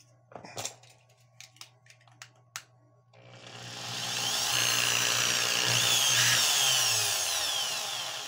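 Bosch electric hammer drill, just repaired, running in plain drill mode after a few handling clicks. The motor comes up to speed about three seconds in with a rising and falling whine, its spinning chuck pressed against a plastic tool handle, and starts to wind down near the end.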